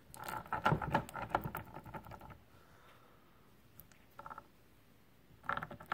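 Brushcutter gearhead being turned by hand, its freshly greased gears and unsealed bearings giving a quick run of light clicking and rattling for about two seconds, then a short burst and a few more clicks near the end.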